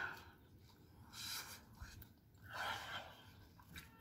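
Two sharp, breathy gasps through the mouth, about a second in and again near three seconds, from someone with a mouthful of hot, spicy Jamaican patty, breathing against the heat.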